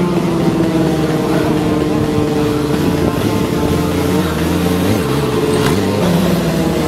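Motorcycle engine held at steady high revs during a wheelie, with the revs dipping and rising again about five seconds in.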